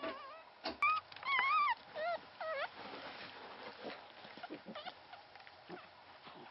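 Newborn Pomeranian-mix puppy crying: a run of short, high, wavering squeals in the first few seconds. After that only faint soft clicks and rustling.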